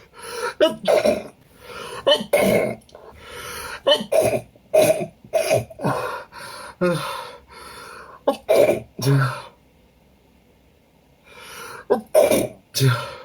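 A man sneezing over and over, a perfume-allergy reaction, with voiced gasping hitches between the sneezes. The bursts come in quick succession, stop for about two seconds, then a few more come near the end.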